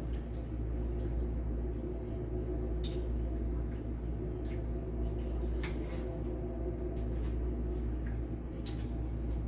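Hamburger Helper simmering in a pan, a soft bubbling with a few sharp little pops, over a steady low hum.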